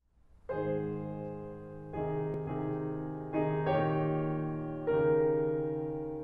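Background music: slow chords on a piano-type keyboard, each struck chord fading away before the next one about every one to one and a half seconds. The music starts about half a second in.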